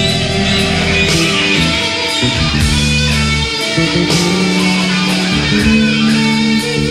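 Electric guitar solo played live with a band: the lead guitar holds and bends long notes over bass and drums, with cymbal hits every second or so.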